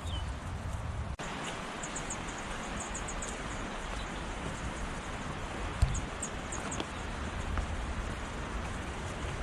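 Steady rushing of river water, with runs of short high chirps twice. There is a low thump about six seconds in.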